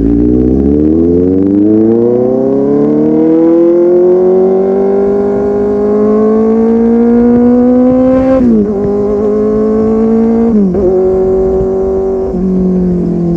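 Kawasaki Z800's inline-four engine through a full-system aftermarket exhaust, pulling hard with its pitch climbing steadily for about eight seconds. Then come two quick upshifts, the pitch dropping sharply each time, and the note settles lower near the end.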